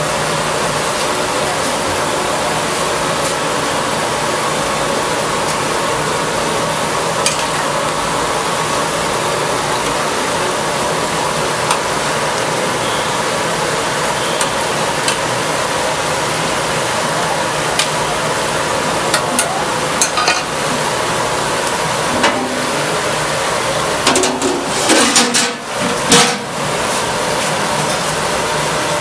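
Chicken pieces deep-frying in a black kadai of hot oil, a steady sizzle, with a metal slotted ladle now and then clicking and scraping against the pan as the pieces are stirred. A short cluster of clanks comes near the end.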